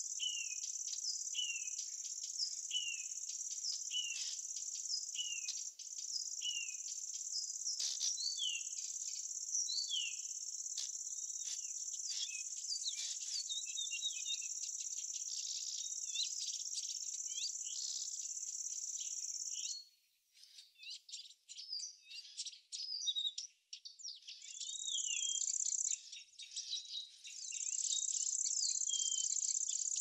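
Insects trill in a steady high buzz while birds chirp over it, one bird repeating a short falling chirp about once a second for the first several seconds. About two-thirds of the way through, the insect trill cuts off suddenly, leaving only scattered bird chirps. It comes back briefly, then steadily again near the end.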